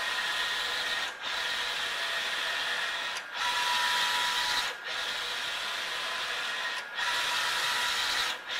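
A Mutoh ValueJet 1638 wide-format inkjet printer printing a bidirectional alignment test pattern. The print-head carriage runs back and forth across the media with a steady motor whine, dropping out briefly every one and a half to two seconds as it reverses direction.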